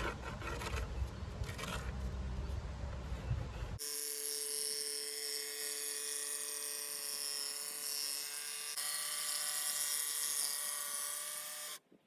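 Electric jigsaw running at a steady whine, cutting out a piece traced from a cardboard template; it comes in abruptly about four seconds in and stops abruptly just before the end. Before it, a steady low background rumble.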